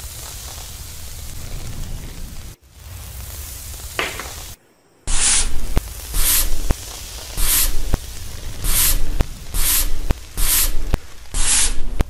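A steady low rumble, then from about five seconds in a run of short, loud hissing scrapes, roughly one a second, as a lump of blue putty is pressed and rubbed along a metal rod by a gloved hand.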